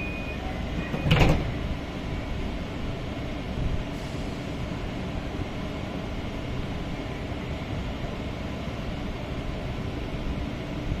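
A coach's door-closing warning beeper sounds a repeated high beep, then the sliding door shuts with a thud about a second in. After it comes a steady low rumble of the train standing ready to depart.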